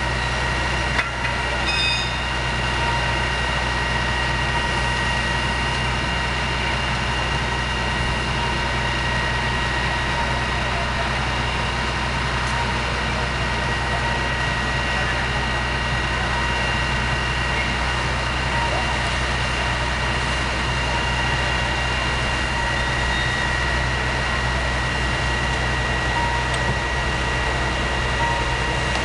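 Fire engines' engines and pumps running steadily: a constant low rumble with a steady high-pitched whine over it.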